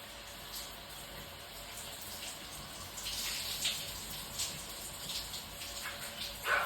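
A cat urinating, a steady trickle of liquid splashing that grows louder about three seconds in, with a few short ticks, the loudest near the end.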